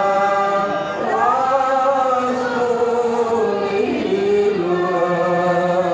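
Voices chanting in long, held notes that glide slowly from one pitch to the next, in the manner of a devotional chant at an Islamic wedding ceremony.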